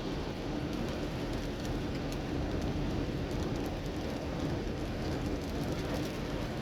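A car driving in rain: steady road and engine noise, with rain on the car and scattered small ticks of drops.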